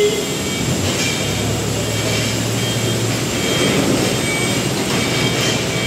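Steady rushing noise of jet aircraft engines on an airport apron, with faint thin high whining tones above it.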